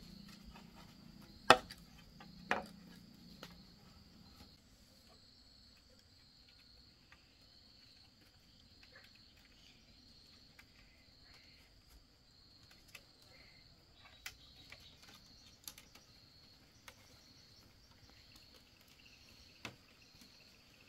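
Insects chirping steadily in a high pulsing drone, with two sharp knocks about a second apart near the start and scattered light taps and clicks after.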